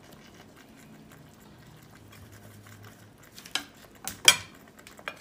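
A few sharp knocks and clatters of a wooden spatula and a spice bottle being handled at an earthenware cooking pot, starting about three and a half seconds in, the loudest a little after four seconds, over a faint low hum.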